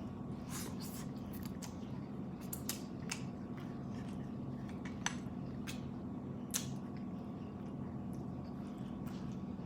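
Eating sounds close to the microphone: scattered small clicks and snaps, the sharpest about five seconds in, over a steady low hum.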